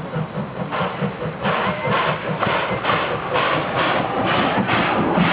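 Steam locomotive chuffing as it pulls away, its exhaust beats starting about a second in at roughly two a second and growing louder.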